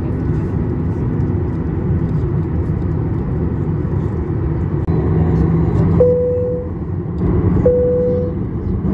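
Cabin noise of a Boeing 737-800 taxiing: a steady low rumble of its CFM56 engines at taxi power, heard through the cabin at a window seat over the wing. In the second half a short, clear single tone sounds twice, about a second and a half apart.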